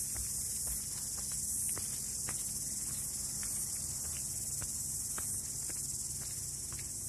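A steady, high-pitched insect chorus, with faint scattered ticks over it.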